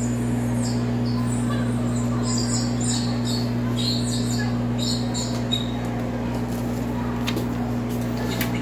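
A steady low hum that cuts off suddenly at the end, with birds chirping in the background.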